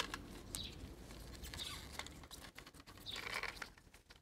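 Gloved hands handling a plastic fuel filter housing and its rubber seal ring: scattered light clicks with rubbing and rustling.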